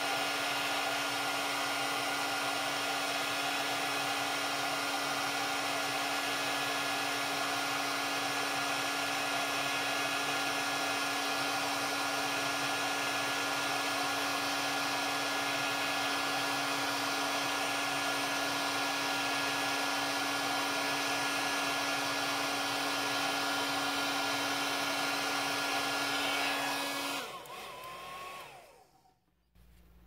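Heat gun blowing steadily with a motor hum, shrinking heat-shrink tubing over a wire splice. It is switched off near the end and its fan winds down.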